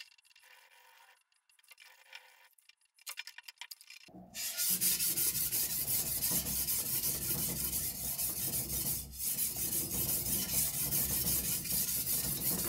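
A Chinese cleaver's steel blade is ground by hand on a wet whetstone. After a few faint handling sounds, steady back-and-forth rubbing strokes of steel on stone start about four seconds in and keep on.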